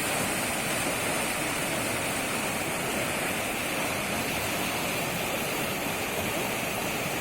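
Floodwater rushing steadily, a continuous even roar of flowing water.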